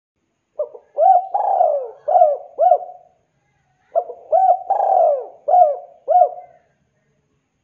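Spotted dove (tekukur) cooing in two phrases, one starting just under a second in and another about four seconds in. Each phrase is a short note followed by a quick run of arched coos that rise and fall in pitch.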